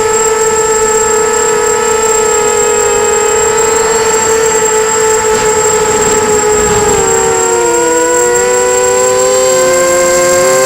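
Electric brushless motors of a 250-size FPV racing quadcopter whining at a steady pitch in flight. About two-thirds of the way through, the whine splits into several pitches that glide up and down as the motors change speed.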